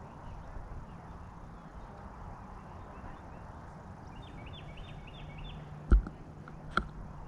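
Steady outdoor background noise, with a bird giving a quick run of repeated chirps about halfway through. Near the end come two sharp knocks, about a second apart, which are the loudest sounds.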